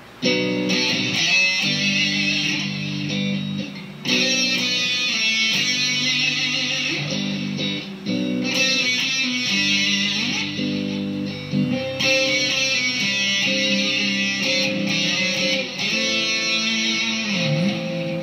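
Squier Bullet Stratocaster electric guitar through a Marshall Silver Jubilee amp with Celestion Greenback speakers, played with overdrive and fuzz plus reverb and chorus. It plays sustained chords and notes in sections that change about every four seconds, with brief dips between them.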